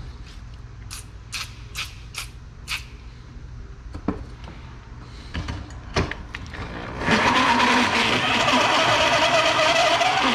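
Five short spray-can hisses, a few knocks, then from about seven seconds in a corded drill runs a bi-metal hole saw into an aluminium air-intake box: a loud, steady whine of motor and cutting teeth on the metal.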